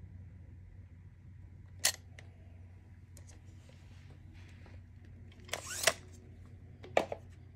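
A few sharp metallic clicks and knocks from handling an opened electric-scooter hub motor, its stator and hub shell, over a steady low hum. There is one click about two seconds in, a short rattling cluster a little past halfway, and another knock near the end.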